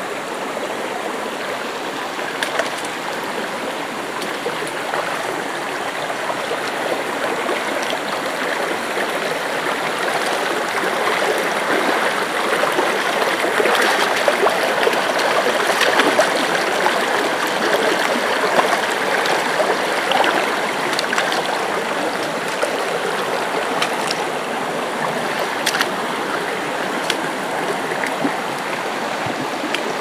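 Shallow rocky forest stream running over stones in small cascades, a steady rush of water that grows a little louder about halfway through.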